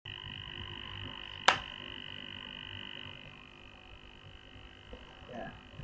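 A steady high-pitched whine with a single sharp click about a second and a half in.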